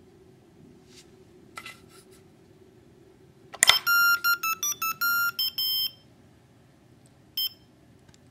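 A homemade mouse trap trips with a sharp snap, and its PIC-driven piezo buzzer then sounds a quick run of loud electronic beeps for about two seconds. One more short beep follows near the end: the alert that a mouse has been caught.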